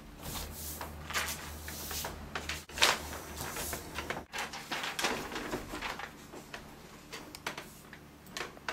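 Scattered rustling and light knocks of things being handled in a small room.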